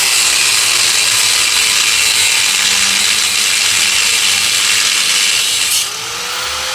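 Power tool cutting into the steel of a truck axle's U-bolts, a loud steady hiss that eases slightly near the end and then stops abruptly.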